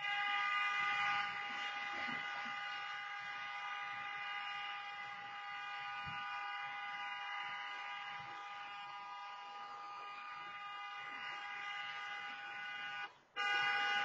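Car horn honking in one long, steady tone that cuts out for a moment near the end and then starts again.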